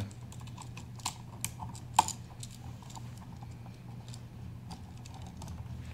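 Scattered small clicks and taps of a plastic electrical outlet and copper wire being handled as the white wire is fitted to the outlet's terminal screw, with the sharpest click about two seconds in.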